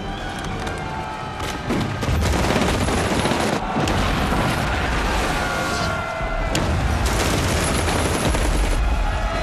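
Battle soundtrack: dense volleys of rifle and machine-gun fire with explosions, over dramatic film music. It grows louder about two seconds in.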